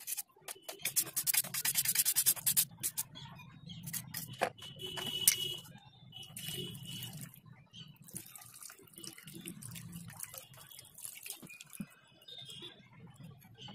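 Stiff-bristled chain-cleaning brush scrubbing an oily motorcycle sprocket cover in a bowl of diesel, with a quick run of rapid brush strokes about a second in. Diesel is then poured and splashes and drips around the part as it is rubbed and handled.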